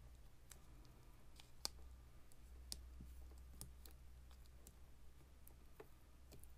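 Faint, irregular clicks of glass beads and beading wire being handled and twisted as beaded leaves are fixed to a beaded rose, over a low steady hum.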